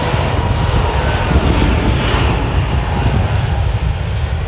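A British Airways Airbus A380's four Rolls-Royce Trent 900 turbofan jet engines running as the airliner rolls along the runway: a deep rumble with a thin steady whine over it.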